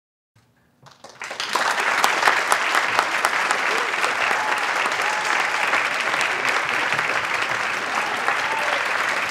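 Crowd applauding and cheering. The clapping starts about a second in, swells to full within half a second or so, then holds steady, with voices shouting through it.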